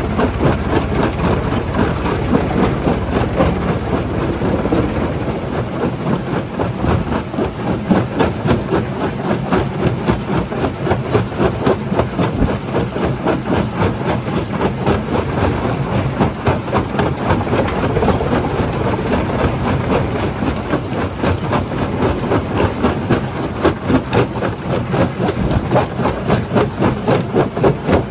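Stone-crushing jaw crusher running and crushing rock: a loud, continuous heavy-machine din with a rapid rhythmic pulsing that grows more marked in the second half.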